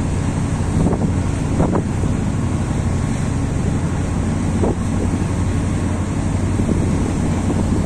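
Steady low drone of a river boat's engine with water rushing past, and wind buffeting the microphone, heard from aboard the moving boat.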